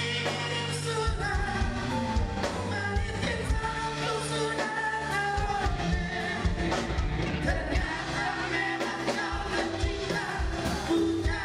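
A live band playing an Indonesian pop ballad, with a singer's voice over held bass notes.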